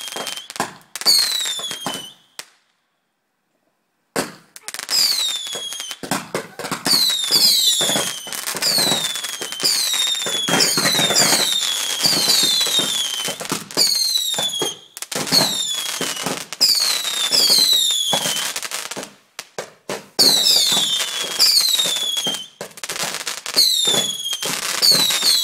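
A multi-shot firework cake firing a rapid barrage of bangs, many of the shots carrying a short whistle that falls quickly in pitch. The sound cuts out completely for under two seconds about two and a half seconds in, then the barrage carries on.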